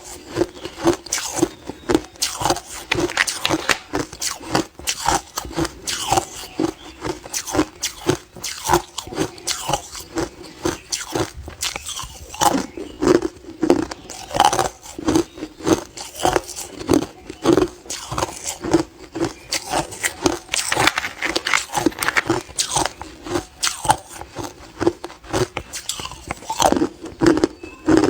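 A person biting and chewing hard clear ice close to the microphone: rapid, irregular loud cracks and crunches as the ice breaks between the teeth, several a second throughout.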